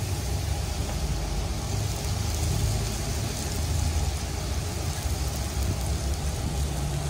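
Flour-coated cooked rice sizzling steadily in a pan of hot oil as it fries crisp, over a steady low hum.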